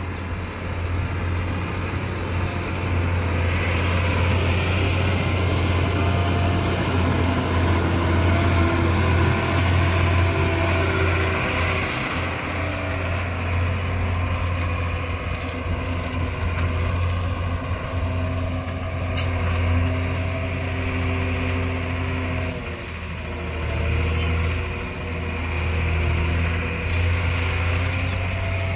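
Loaded Ashok Leyland tipper lorry's diesel engine running steadily as the truck drives past and pulls away, its engine note shifting a few times. A single sharp click sounds about two-thirds of the way through.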